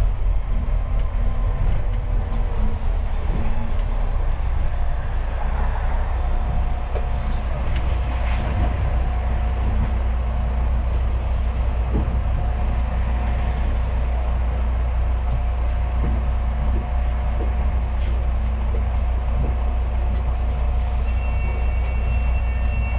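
A London double-decker bus on the move, heard from on board: a steady low engine and road drone with a faint steady whine and scattered rattles and clicks from the bodywork.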